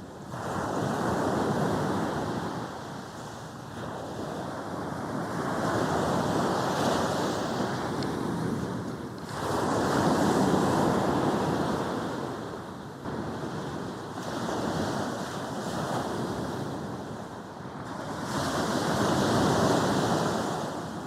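Sea waves breaking and washing up a beach, the surf swelling and fading in several surges a few seconds apart.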